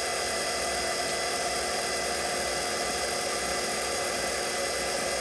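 Mini lathe running at a steady speed with its motor whine, a flat file held against the spinning bushing to chamfer its edge. The sound stays even throughout.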